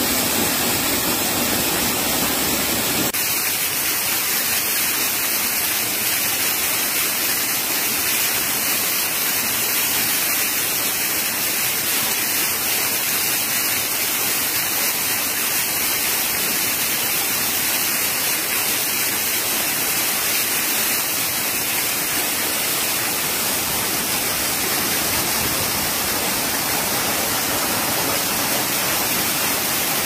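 Waterfall pouring and crashing over rock: a steady, loud rush of falling water with strong hiss. About three seconds in the sound shifts and loses some of its low rumble.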